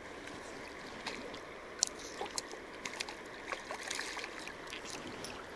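Steady lapping and flowing of river water, broken by scattered small sharp clicks and splashes, the strongest about two seconds in, as a hooked trout thrashes at the surface on the end of a fly line.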